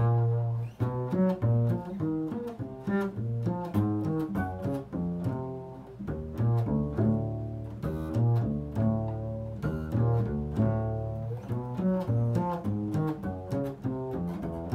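Solo double bass playing an improvised line of low notes, many with sharp attacks.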